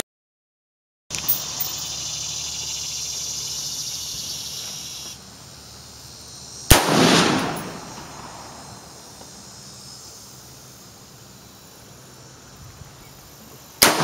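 A single rifle shot from a 5.56 rifle with a 24-inch bull barrel about seven seconds in: a sharp crack with an echoing tail that dies away over about a second. A second shot starts right at the end. A steady high insect buzz fills the first few seconds.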